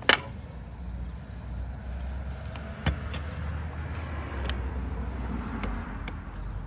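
A mattock chopping into root-filled soil: a sharp strike right at the start, another about three seconds in, and a few lighter knocks later, over a low steady rumble.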